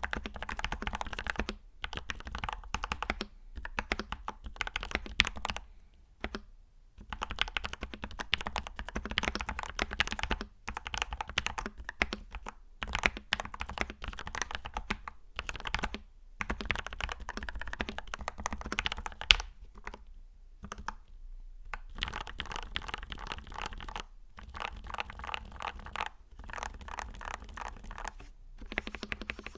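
Typing on a Tester68 mechanical keyboard fitted with Gateron Milky Yellow linear switches: quick runs of keystrokes broken by short pauses, with one louder clack just past the middle.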